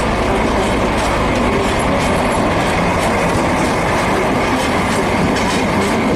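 DB class 216 diesel-hydraulic locomotive passing close by, its diesel engine running loud and steady, with its wheels clacking over the track.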